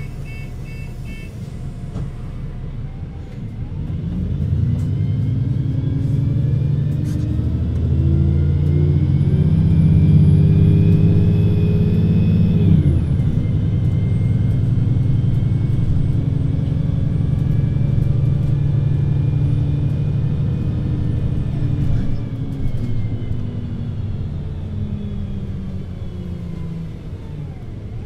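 VDL Citea LLE 120 city bus diesel engine with its Voith automatic gearbox pulling away: engine pitch and a high whine rise together, then the gearbox shifts up about 13 seconds in and the pitch drops suddenly. The engine runs steadily, then its pitch falls away as the bus slows near the end before it picks up again.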